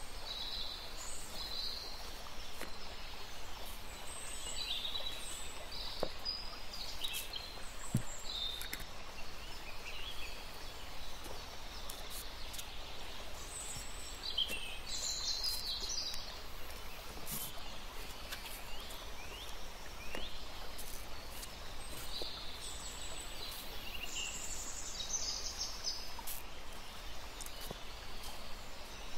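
Small birds chirping now and then over a steady background hiss, with a few faint clicks.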